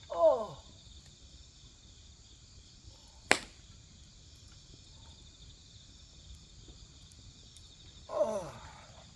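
Steady chorus of crickets and other grass insects, with a single sharp pop from burning firewood about three seconds in. Twice, at the start and again near the end, a short cry slides steeply down in pitch; these are the loudest sounds.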